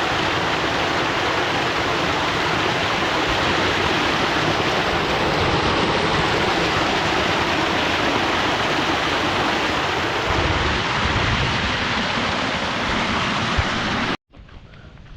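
Steady rushing of water from a small waterfall running full after heavy rain; it cuts off abruptly near the end.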